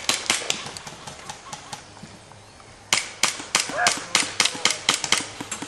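Gas blowback airsoft pistols firing single shots: sharp cracks in quick succession, a short lull about two seconds in, then a rapid exchange of shots through the rest.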